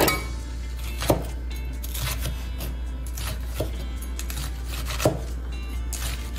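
Chef's knife chopping fresh pea pods on a wooden cutting board: a handful of sharp, irregularly spaced knocks, the loudest about a second in and near the end, over background music.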